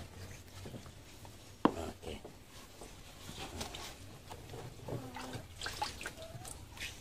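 Faint splashing and dripping of water as turtles are lifted out of a water-filled plastic drum, with a single sharp knock about a second and a half in.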